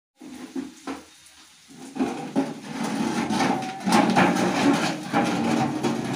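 Empty rusty metal tins knocking and scraping as they are pushed and dragged across a concrete floor. A few knocks come in the first second, then a continuous rough scraping grating from about two seconds in.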